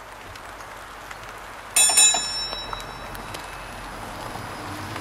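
A tram (street-car) bell mounted on a Prius, struck twice in quick succession about two seconds in and ringing out briefly, over steady road noise. It is a warning signal to cyclists and pedestrians that the near-silent hybrid is approaching.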